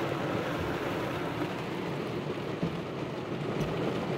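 Heavy rain falling on a car's roof and windshield, heard from inside the car as a steady, even rushing noise.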